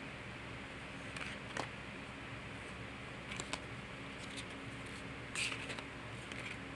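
Yu-Gi-Oh trading cards being sorted through by hand: a few soft, scattered clicks and rustles over a steady background hiss.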